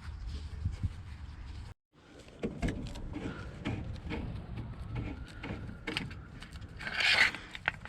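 Scattered knocks and clicks of hands working, with a short scraping hiss near the end.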